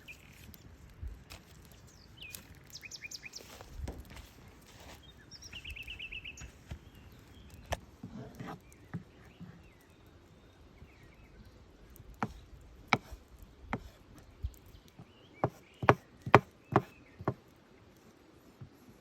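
Sharp chopping knocks, a few spread-out single strikes and then a quicker run of about five near the end. Short bird trills sound in the first few seconds against a quiet outdoor background.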